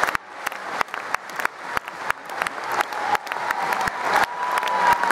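Arena audience applauding, with sharp individual claps close by standing out of the crowd's clapping. About three seconds in, a steady high tone like a held whistle comes in over it.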